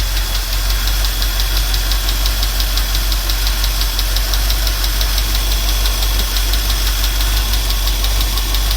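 Chevy G10 van's small-block 350 V8 idling steadily with a rapid, regular ticking from the rear of the engine. The owner suspects a bad lifter or a leaking exhaust manifold gasket, and thinks the tick is too snappy to be a leak.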